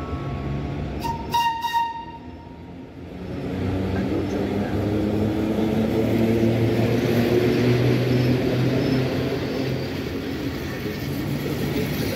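Electric train pulling away: a brief high toot about a second in, then the E656 locomotive and its carriages starting off, a low hum with several steady tones that grows louder from about three seconds in.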